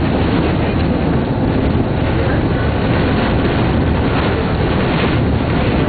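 Electric streetcar running, heard from inside the car: a steady, loud running noise of the wheels on the rails and the car body under way.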